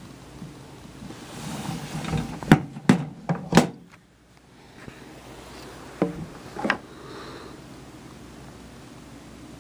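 A run of sharp clicks and knocks: four in quick succession about two and a half seconds in, then two more about six seconds in, over a low steady background hum.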